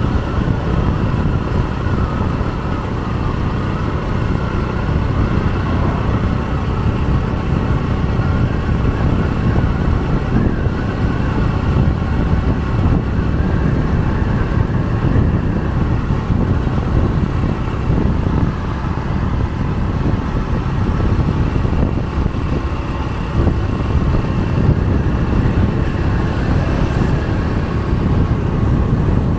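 Steady road noise of a vehicle cruising along a highway: a continuous low rumble of engine, tyres and wind with a faint steady hum over it, unchanging in pace.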